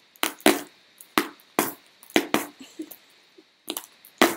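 A bunch of keys jabbing and scraping at the packing tape on a cardboard box, in about a dozen sharp, irregular knocks and clicks, with an echo from an empty room.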